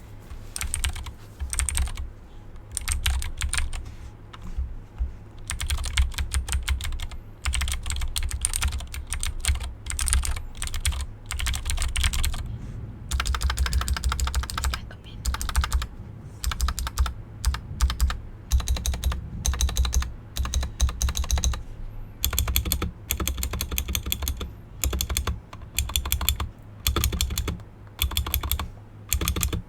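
Fast typing on a GK61 mechanical keyboard with clicky Gateron Blue switches and PBT keycaps, picked up with the microphone gain turned right up. The keystrokes come in quick runs of clicks broken by short pauses.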